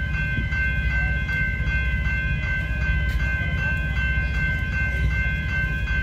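Level crossing warning bell ringing in a fast, even ding-ding rhythm while the crossing is active, over a steady low rumble.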